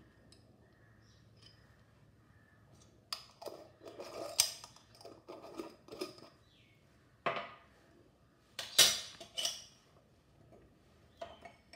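Metal spoon clinking and tapping against glass spice jars and a glass mixing bowl as spice powders are spooned out, in scattered strokes starting about three seconds in, the loudest cluster near nine seconds.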